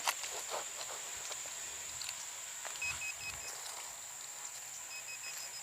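Outdoor ambience with a steady high-pitched insect drone. Over it come runs of short, evenly spaced beeps at one pitch, about three seconds in and again near the end, with a few soft low thuds between.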